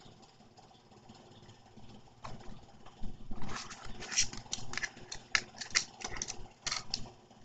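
Clear plastic blister packaging crackling and snapping as a die-cast toy car is worked free of it: one click about two seconds in, then a dense run of sharp crackles for about three and a half seconds.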